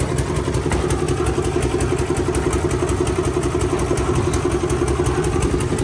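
A small engine running steadily at idle, with an even, fast pulsing beat.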